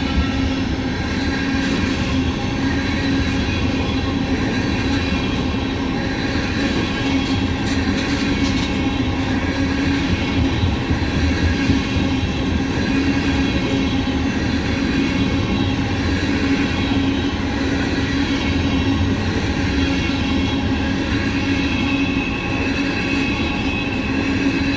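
Ethanol train's tank cars rolling past: a loud, steady rumble of steel wheels on the rails that runs on without a break.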